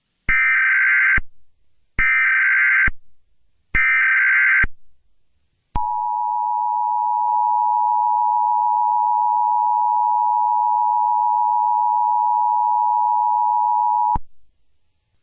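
Emergency Alert System broadcast tones. First come three SAME digital header bursts, each a warbling data screech just under a second long, then the steady two-tone EAS attention signal, held for about eight seconds before it cuts off abruptly near the end.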